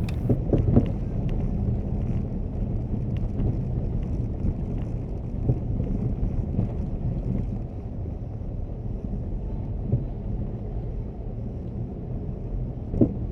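Haval F7 driving over rough road: a steady low rumble broken by repeated hellish knocks from the front suspension. The dealer later traced the knocking to a worn left ball joint with a cracked boot.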